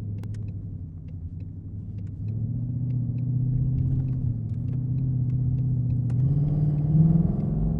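2020 Mustang's exhaust on a ghost-cam tune, running with an uneven, choppy idle, then the engine speed rises about six seconds in as the car pulls away.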